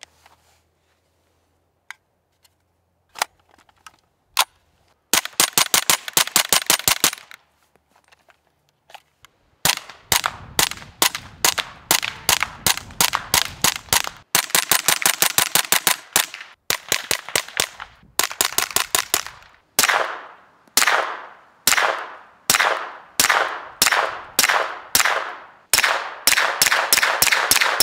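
Suppressed 9mm gunfire through a Sonus 9 silencer, from a Kriss Vector carbine and a pistol. It opens with a few scattered single shots, then long rapid-fire strings, then single shots a little over half a second apart each with a short ring, and a fast string at the end.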